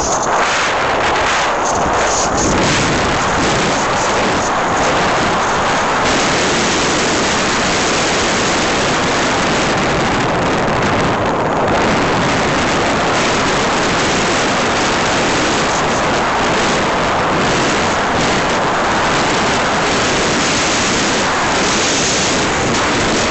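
Small aircraft in flight: a loud, steady rush of engine and airflow noise with no distinct engine note.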